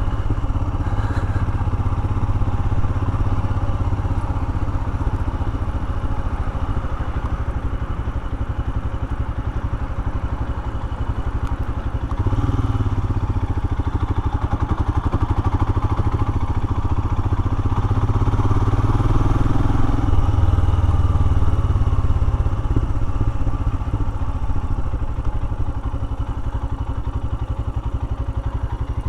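Royal Enfield Himalayan motorcycle's single-cylinder engine running while being ridden, its level swelling with the throttle about twelve seconds in and again around eighteen to twenty-two seconds.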